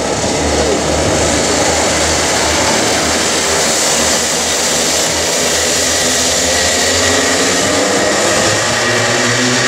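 A pack of two-stroke racing karts running together, a dense, steady mix of many engines. From about eight seconds in the engines rise in pitch together as the field accelerates away at the flag start.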